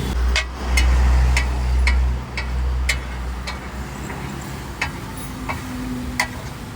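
Metal spatula clinking against a large iron tawa, about ten sharp strikes spaced roughly half a second apart, over a low rumble that is loudest in the first two seconds.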